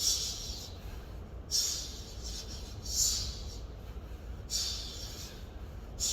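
Sharp, hissing exhales of a man doing hard-style kettlebell swings, one forceful breath on each swing, about one every second and a half.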